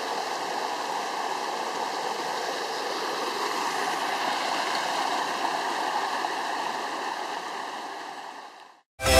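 Forest stream swollen and muddy with floodwater after heavy rain, a steady rushing of water that fades out near the end. Music cuts in at the very end.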